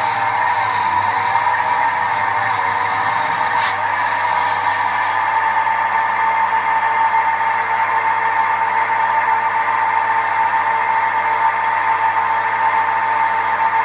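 Record wood lathe running with a steady whine while a gouge hollows the spinning bowl blank: a hiss of cutting for the first few seconds with one sharp knock, then the motor's steady whine alone.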